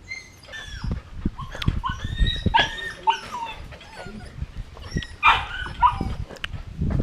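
Golden retriever puppies yipping and whining at play, many short high-pitched calls overlapping, with scattered knocks and scuffles underneath.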